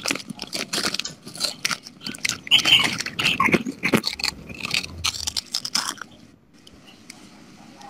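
Irregular crunching and crackling noises, dense for about six seconds, then dying down to faint scattered clicks.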